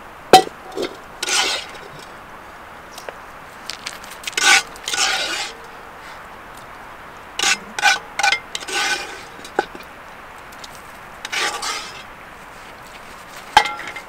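A utensil scraping and clinking against metal cookware in a series of short strokes, with a faint metallic ring; a sharp knock just after the start and another near the end are the loudest sounds.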